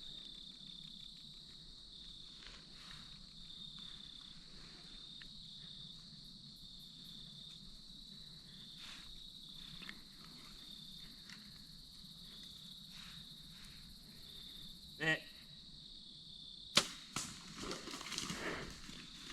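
Crickets trilling steadily and faintly; a little before the end a bow is shot at a deer, one sharp crack, followed by rustling and crackling in the leaves and brush.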